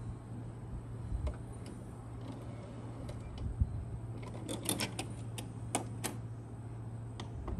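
JVC HR-J491MS VHS video recorder's tape transport unloading and ejecting a cassette: a few separate clicks, then a quick run of sharp mechanical clicks and clunks about halfway through as the cassette is pushed out, over a low steady hum.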